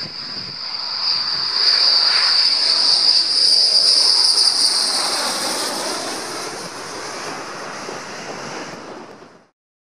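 F-15E Strike Eagle's twin jet engines on landing approach with gear down: a loud, high-pitched whine over a rushing roar that swells as the jet passes close, then slowly fades before cutting off suddenly near the end.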